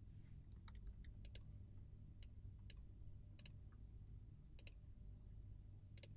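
Faint computer mouse clicks, about eight, several in quick pairs, over a low steady hum.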